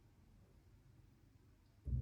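Miele W1 Active WCA 030 washing machine, quiet except for a faint low hum, then a sudden short low thud near the end as the wash program gets under way.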